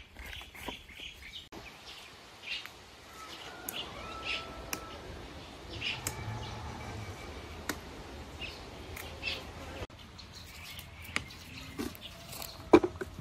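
Small birds chirping and calling with short notes and brief whistles, over light clicks and rustles of herbs being picked from a garden bed, and one sharp knock near the end.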